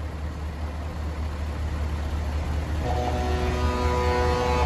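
Heavy diesel truck engines running with a steady low rumble that slowly grows louder. From about three seconds in, a steady pitched tone with several overtones sounds over it until the end.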